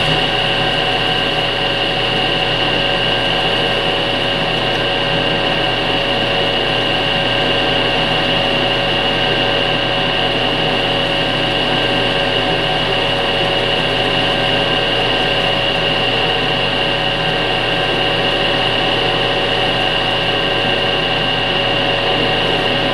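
Metal lathe running at steady speed, a constant whine with a strong high tone, spinning a small glass vacuum tube in its jaw chuck while a small cutter is held against the glass to score it.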